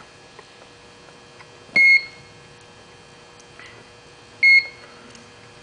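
Two short electronic beeps from the LH75 grinder control's keypad as keys are pressed, about two and a half seconds apart, over a faint steady hum.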